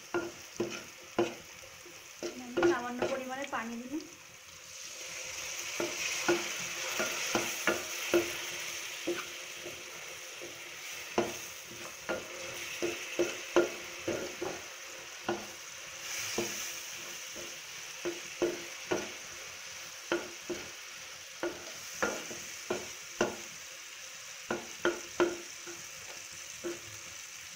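Spatula stirring onions and green chillies frying with turmeric in hot oil in a metal pan: a steady sizzle with repeated sharp knocks and scrapes of the spatula against the pan. The sizzle grows louder about five seconds in.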